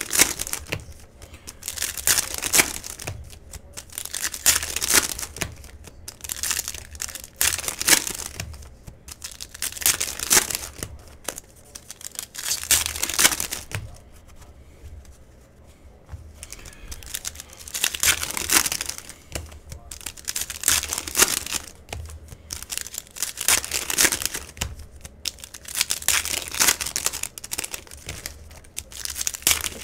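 Cellophane wrappers of trading-card cello packs crinkling and tearing as the packs are opened one after another, in bursts every two to three seconds with short quieter gaps.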